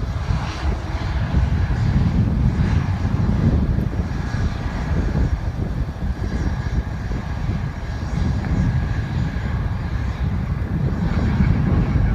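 Airliner jet engines making a steady heavy rumble with a faint high whine above it.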